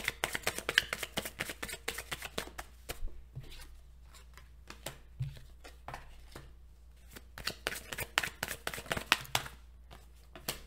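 A deck of cards being shuffled by hand: rapid runs of crisp card clicks and flicks, dense for the first few seconds, sparse in the middle, then dense again near the end.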